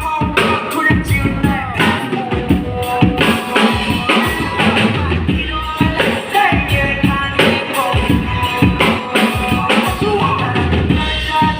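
Drum kit played along to a song, with steady kick-drum and snare strokes over the melody.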